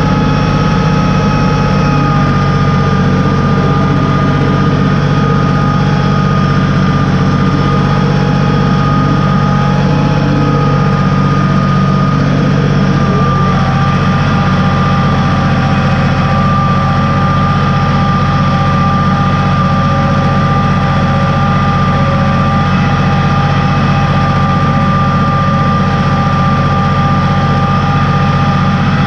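Farm tractor engine running steadily under load while pulling a three-point mounted moldboard plow through the soil, with a constant high whine riding over the engine note.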